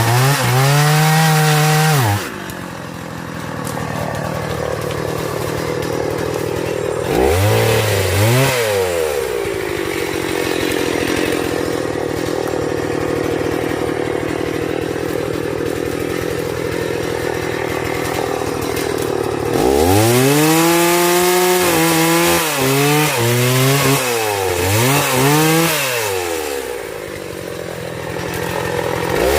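Chainsaw running, its engine revved up several times so that the pitch climbs and drops, with a long stretch of steadier, lower running in the middle.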